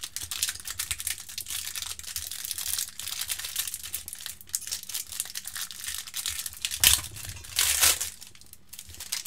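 Plastic wrapper of a trading-card pack crinkling as it is torn open and the cards are pulled out, with two louder crackles about seven and eight seconds in.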